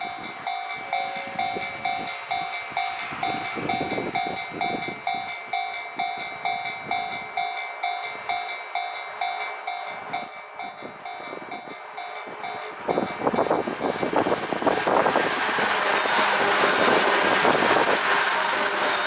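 A level-crossing warning bell dings steadily, about two to three strikes a second. About thirteen seconds in, the bell stops and a JR East 185 series electric train comes through with a rising rush and wheels clattering over rail joints. The train is the loudest sound.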